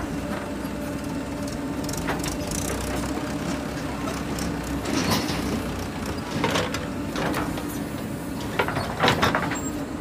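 JCB 3DX backhoe loader's diesel engine running steadily under hydraulic load as the backhoe digs and dumps soil. Scattered clanks and scrapes of the bucket and soil cut through it, the loudest near the end.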